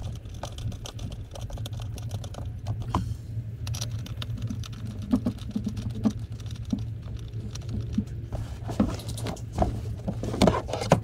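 Small irregular clicks and rattles of bolts and rear-seat hardware being handled, then louder knocks as the Toyota Tacoma's rear seat is moved in the last few seconds, over a steady low hum.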